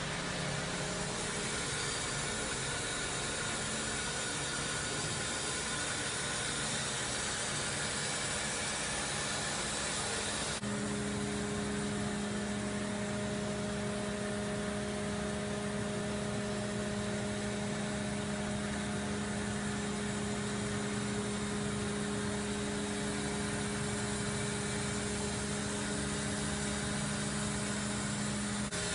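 Kitamura Mycenter 3X vertical machining center running under power: a steady machine hum, joined about a third of the way in by a strong, steady pitched tone that holds until just before the end.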